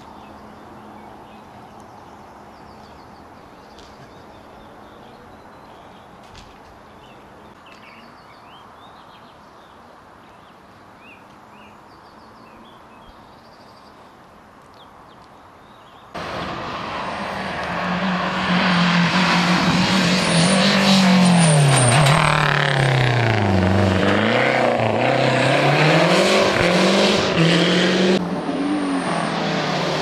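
Faint birdsong over quiet outdoor ambience, then a historic rally car at full throttle on a special stage, loud, its engine revs rising and falling through the gears, dropping lowest about two-thirds of the way through before climbing again.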